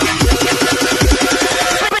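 Electronic background music: rapid repeated synth notes over a deep bass beat.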